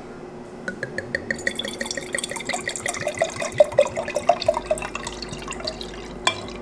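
Beer glugging as it is poured into a glass, a quick run of gulps falling steadily in pitch as the container empties. A single knock comes near the end.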